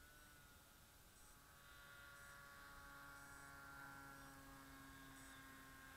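Near silence with a faint steady hum of several pitches held together, growing a little louder about two seconds in.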